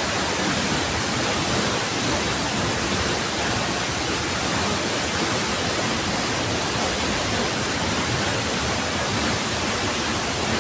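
A high waterfall pouring down close by: a loud, steady rush of falling water that fills every pitch and does not change.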